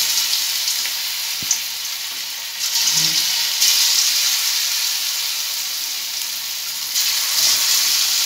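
Egg-and-cornflour-coated soya chunks sizzling as they deep-fry in hot oil in a kadai. The sizzle grows louder twice, about three and seven seconds in, as more pieces are dropped into the oil one by one.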